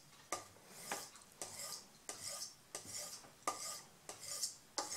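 Straight razor stroked back and forth on a flat leather strop dressed with green polishing compound: a quiet, quick swish about every half second. It is the final stropping that pulls the burrs off, realigns the edge and polishes it.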